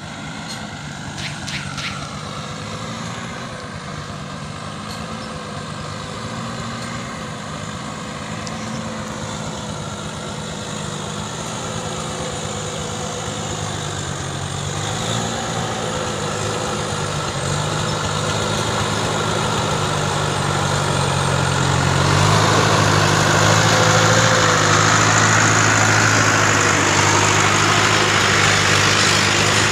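Homemade farm truck's engine running steadily as it crawls over rough ground, growing louder as the truck approaches and louder still about three-quarters of the way through, when it draws up right alongside.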